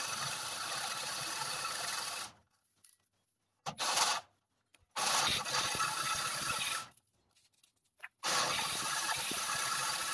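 Cordless drill running a hole saw through the wall of a steel patio post, the saw teeth grinding on the metal. It cuts in three runs of about two seconds and one brief burst, stopping between them.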